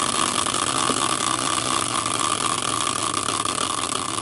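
A rigid caster wheel spinning freely on its bracket: a steady whir from the wheel and its bearing that slowly gets quieter as the spin winds down.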